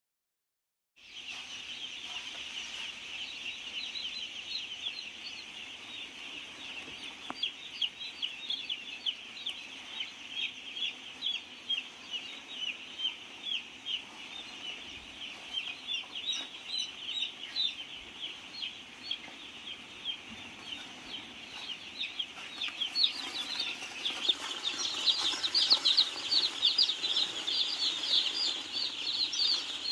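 A large flock of broiler chicks peeping together, a dense chorus of high cheeps that grows louder in the last quarter.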